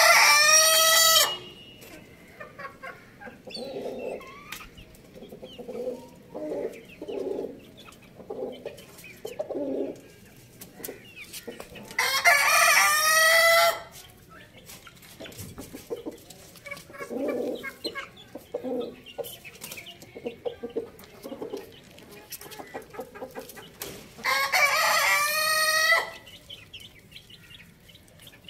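Rooster crowing three times, about twelve seconds apart, the first crow already under way and ending about a second in. Between the crows, hens cluck softly in short, repeated calls.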